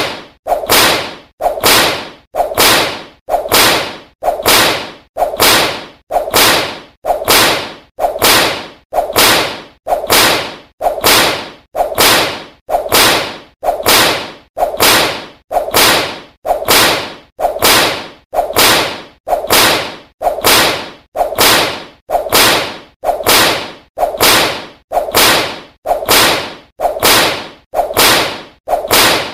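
Whip lashing over and over at a steady pace of about one stroke a second, each a sharp crack that dies away quickly.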